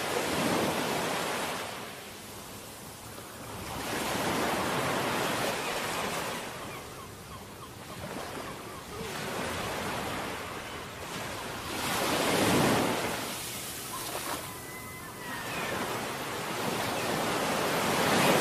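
Whoosh sound effects of an animated video intro: about five broad swells of rushing noise, each rising and fading over a few seconds, the loudest two near the middle and at the end, with a faint thin tone briefly in between.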